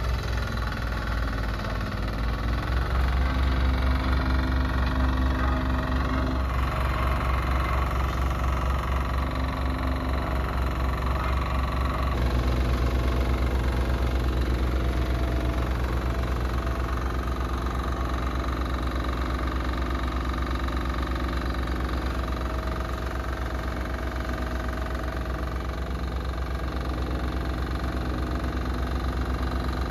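Walk-behind double-drum vibratory roller with a Yanmar single-cylinder diesel engine running steadily as it rolls over broken rubble and gravel, with a fast, even low pulse.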